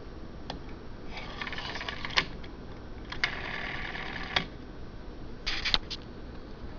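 Rotary telephone dial wound round and let go twice, each return a whirring clatter of about a second that ends in a sharp click as it hits its stop; a few more clicks come near the end.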